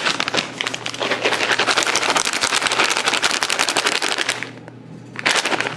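Dry cat food rattling in its container: a dense, rapid clicking that runs for about four and a half seconds and then stops, with a few more clicks near the end.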